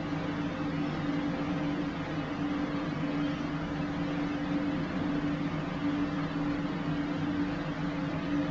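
A steady mechanical hum with a constant low drone over an even hiss, unchanging throughout.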